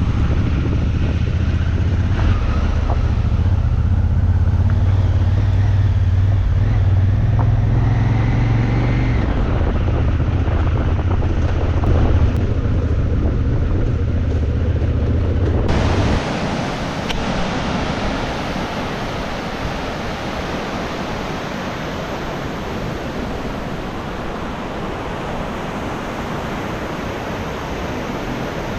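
Enduro motorcycle engine running, its pitch rising and falling, for about sixteen seconds, then an abrupt change to a steady rushing noise.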